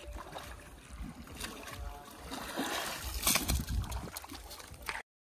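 Splashing river water under a steady low wind rumble on the microphone, with a louder, sharper splash a little over three seconds in; the sound stops abruptly about five seconds in.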